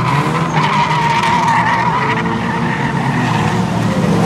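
Engines of a pack of 1600 cc production rod oval racing cars running at high revs, a wavering high note over a steady low drone.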